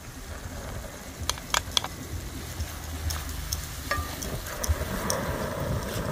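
Chopped garlic, peppers and green seasoning sizzling as they hit hot curry paste in a steel pan and a wooden spoon stirs them in. A few sharp taps about a second and a half in, and the sizzling grows louder toward the end.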